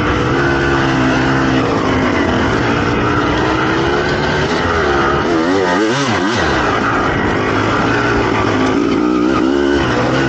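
2007 Suzuki RM250's single-cylinder two-stroke engine with an FMF pipe, ridden hard, its pitch rising and falling with the throttle. About six seconds in, the pitch swings up and down several times in quick succession.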